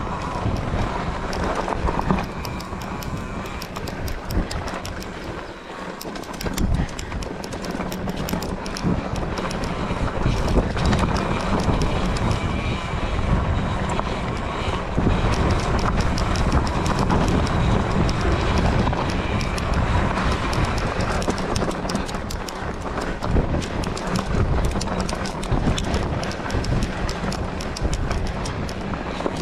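Wind buffeting a GoPro's microphone, with a continuous clatter of small knocks and crunches from moving along a rough dirt trail.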